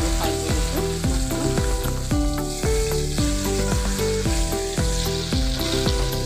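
Boroli fish frying in hot oil in an iron karahi, the oil sizzling steadily as a steel spoon stirs it. Background music with a steady beat plays under the sizzling.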